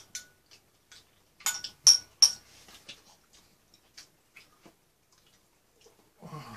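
Close-up eating sounds: wet mouth smacks and clicks while chewing. Three sharp, loud clicks come between about one and a half and two and a half seconds in, then fainter ticks, and a brief low sound near the end.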